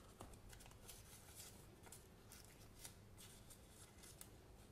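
Faint rustling and crackling of a folded paper sticker sheet being handled and unfolded by hand, a run of soft, irregular crinkles.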